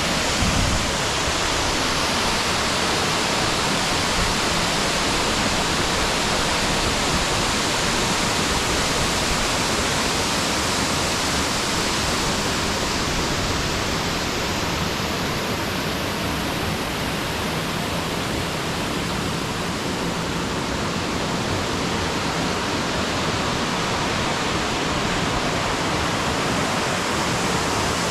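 Waterfall, a steady, unbroken rush of falling water.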